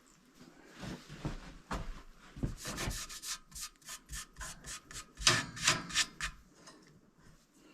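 A few irregular scrapes and knocks, then quick rhythmic scraping strokes, about four a second, for roughly four seconds.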